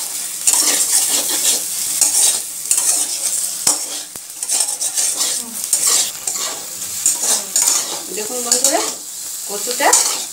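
Metal spatula scraping and stirring spiced taro corms around a metal wok in repeated strokes over a steady sizzle. The taro is being fried dry with no water added, nearly done.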